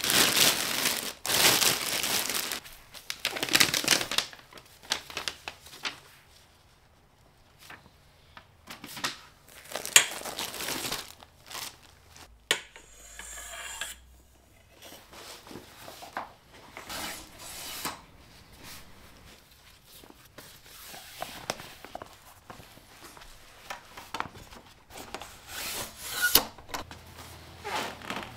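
Plastic wrapping crinkling and rustling as it is pulled off a Snow Peak High Tension Cot, loudest in the first few seconds. Then scattered clicks and knocks of the cot's aluminium frame being unfolded and set up, the sharpest about ten seconds in.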